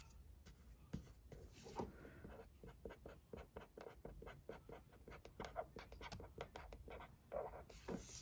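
Faint, quick scratchy strokes of a felt-tip marker writing on a pink heart-shaped sticker.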